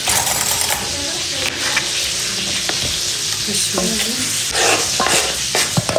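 Steady sizzling hiss of food frying in a pan, with a few sharp knocks of a knife on a cutting board.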